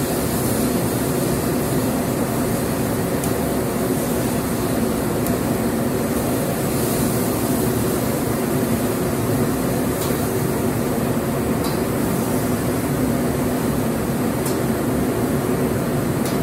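Mongolian barbecue griddle cooking noodles: food sizzling over a steady roar, with bursts of hissing as liquid is squirted onto the hot iron and a few sharp spatula taps on the griddle.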